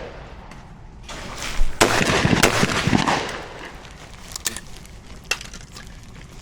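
A shotgun blast dies away, then a few seconds of handling noise: rustling with several sharp clicks, loudest about two to three seconds in, and a few fainter clicks after.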